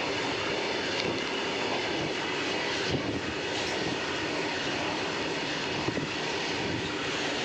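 Freight train passing close by: a steady rumble of wagon wheels on the rails, with a few sharp clicks.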